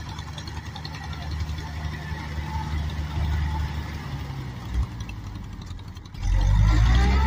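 Kubota M5000 tractor's diesel engine running steadily under load as it pulls a rotary puddler through flooded paddy mud. About six seconds in, loud music with rising tones cuts in over it.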